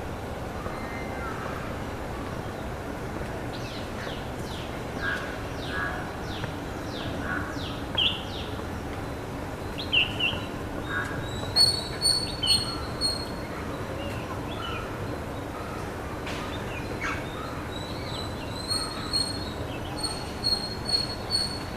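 Several birds chirping and calling over a steady low background noise, with quick down-sweeping calls a few seconds in. From about halfway there are rows of short, high, piping notes.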